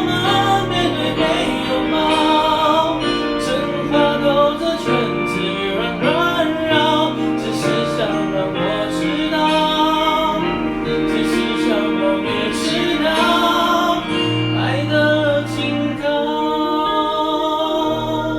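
Mandarin pop song sung with vibrato over a backing track, played back through a handheld karaoke microphone's built-in speaker.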